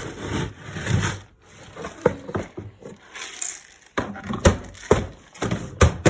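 Rustling and scraping of rabbit feed being handled, then a run of sharp, irregular knocks and clatters in the second half.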